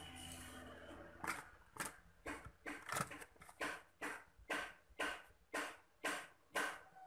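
About a dozen short scraping strokes in an even rhythm of about two a second, starting about a second in.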